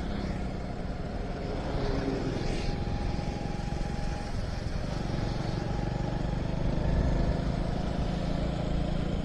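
Motorcycle engine running steadily while riding along a road, its low note mixed with a steady rush of wind and road noise.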